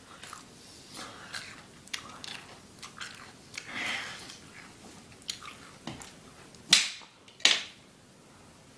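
A person chewing and biting into food: soft, scattered crunching and mouth noises, with two louder, noisy sounds a little under a second apart near the end.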